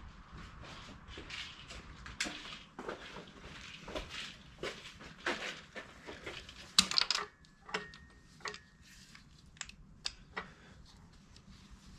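Hand tools clicking and clinking on metal as the cylinder-head bolts are worked loose by hand: irregular knocks and clicks, the loudest about seven seconds in.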